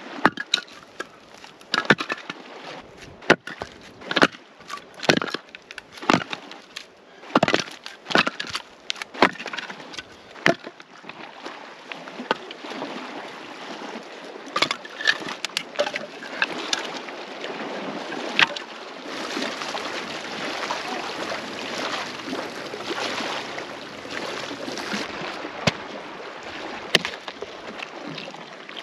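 Split firewood logs knocking and clattering as they are handled and stacked. For the first ten seconds there are sharp separate knocks about one a second, then a denser run of scraping and rustling with the odd knock.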